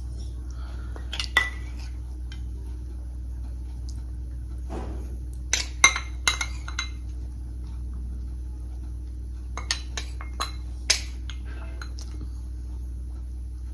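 Metal spoon clinking and scraping against a small stainless steel bowl, in scattered light ringing clinks: one about a second in, a quick run of several around six seconds, and another run around ten to eleven seconds.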